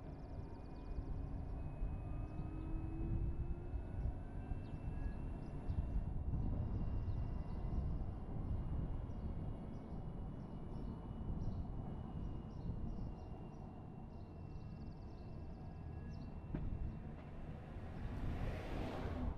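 A car driving slowly through town streets: steady low road and wind rumble, with faint high chirps above it and a brief swelling hiss near the end.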